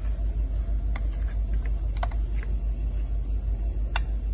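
A few short sharp metallic clicks as the piston of a Stihl MS 362 chainsaw is worked by hand, its connecting rod seized on the crank pin from a failed crank-pin bearing, over a steady, evenly pulsing low hum.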